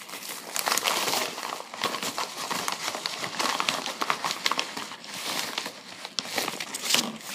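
Paper packaging and a packing slip being handled: irregular crinkling and rustling with many small sharp clicks.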